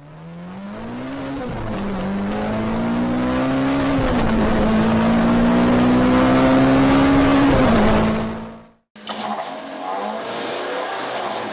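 Rally car engine accelerating hard through the gears, its pitch climbing and dropping at each shift, then fading out. After a brief silence, a rally car's engine idles with small throttle blips, heard from inside the cabin.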